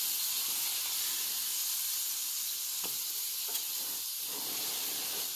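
Portobello mushroom sizzling and bubbling in margarine in a hot frying pan as it is pressed flat with a spatula to squeeze its moisture out. A steady hiss, with a couple of faint clicks about three seconds in.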